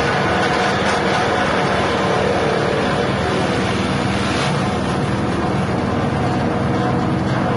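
6.5 hp petrol engine driving a grass chopper and grinder, running steadily at constant speed.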